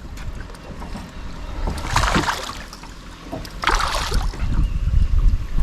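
Low rumble of wind buffeting the microphone, with two short hissing bursts of noise about two and four seconds in.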